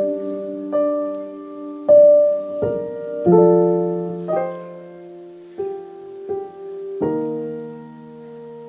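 Stage keyboard playing slow, sustained piano chords, a new chord about every second, with the last chord held for the final couple of seconds.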